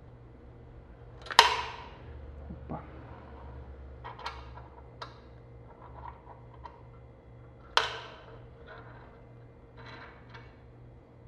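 Metal clicks and knocks from handling a mug heat press while its small-mug heating element is fitted into the clamp. Two sharp knocks, about a second and a half in and near eight seconds, with lighter clicks and rattles between them.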